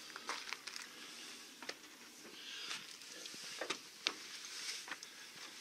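Footsteps and handling noise inside a small camper van: scattered soft knocks, clicks and rustles at an irregular pace.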